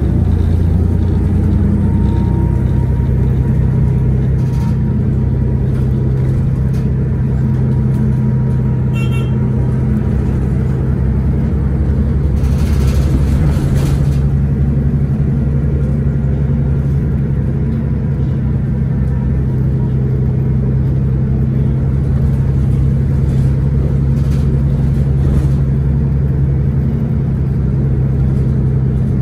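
Cummins ISL9 inline-six diesel of a 2011 Orion VII 3G transit bus running steadily while under way, a constant low engine hum. A brief hiss comes about halfway through.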